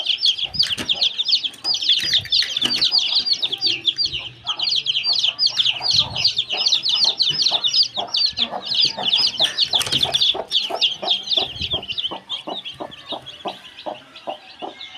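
A brood of newly hatched chicks peeping nonstop, a dense chorus of rapid high chirps. In the second half a lower, regular clucking from the broody hen joins in, about three times a second.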